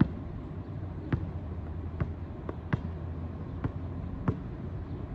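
Basketball being dribbled on an outdoor asphalt court: about seven sharp bounces, unevenly spaced, roughly one or two a second.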